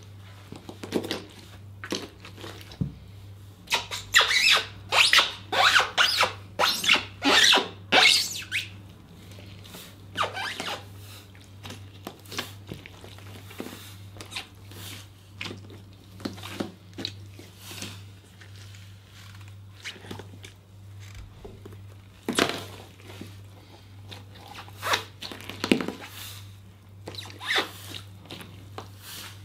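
Rubber wellington boots treading on grapes in a plastic tub: wet crushing and scraping of grape pulp underfoot, in uneven runs of steps that are busiest a few seconds in and again near the end. A low steady hum runs underneath.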